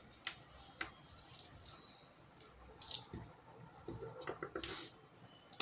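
Rustling and light clicking of a tangle of thin plastic-coated wires and small plastic LED bulbs of a decoration light string being handled, in short irregular bursts.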